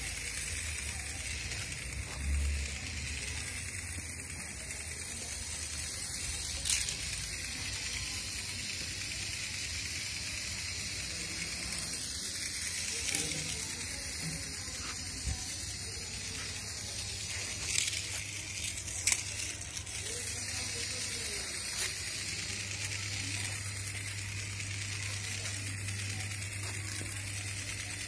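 Infrared remote-control toy stag beetle crawling: its small electric motor and plastic leg gearing give a faint steady whir and rattle, with a few sharp clicks.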